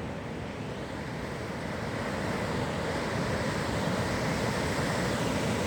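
Ocean surf washing onto a sandy beach: a steady rushing wash that swells gradually louder as a wave comes in.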